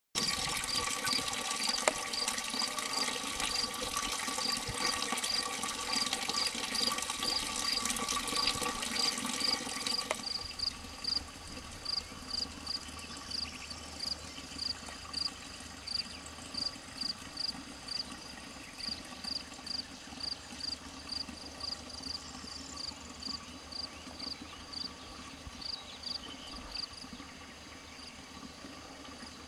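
Water running from a stone village fountain (çeşme), splashing loudly for about the first ten seconds and then dropping away sharply. All along, a steady series of high chirps repeats about twice a second.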